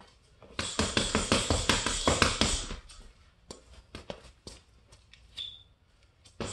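Boxing gloves striking a hanging heavy bag: a fast flurry of about six punches a second for roughly two seconds, then slower, lighter single hits. A brief high squeak comes near the end.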